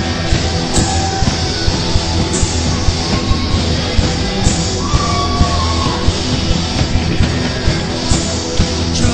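Rock band playing live, with a steady drum beat and cymbal crashes now and then.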